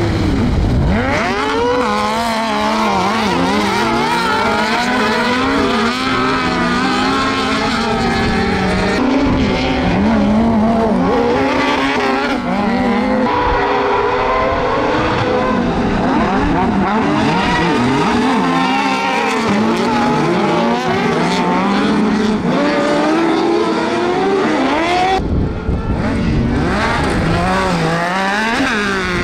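Several carcross buggies' high-revving motorcycle engines racing as a pack, many overlapping engine notes rising and falling as they accelerate and shift through gears. Near the end one buggy's engine rises sharply close by.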